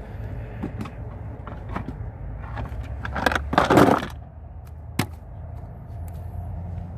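Steady low hum of a boat's motor, with scattered knocks and clatter. A loud, noisy rush comes about three seconds in, followed by one sharp click.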